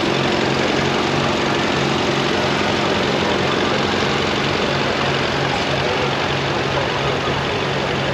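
Small vintage tractor's engine running at a slow, low pulsing beat as it drives past, over a steady wash of background noise.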